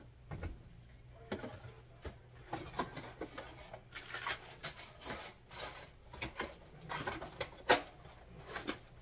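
Household clutter being sorted by hand: rustling of clothes and plastic with scattered light clicks and knocks, one sharper knock late on, over a faint steady low hum.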